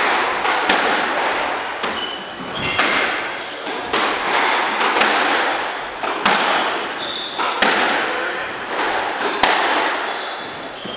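Squash rally: the ball smacking off rackets and the court walls about once a second, each hit echoing briefly, with short high squeaks of shoes on the wooden floor between hits.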